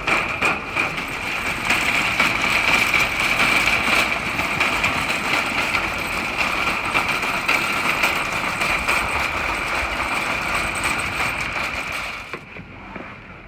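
Steady vehicle engine and road noise that drops away sharply about twelve seconds in.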